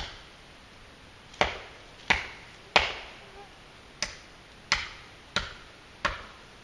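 WC Knives "The Prepper" custom chopper knife chopping into a downed tree limb: about eight sharp chops, mostly about two thirds of a second apart, with a short pause after the first and after the fourth, the loudest about three seconds in.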